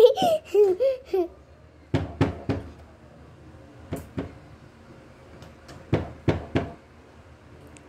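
A short child's voice at the start, then sharp taps or knocks in small groups: three, then two, then three.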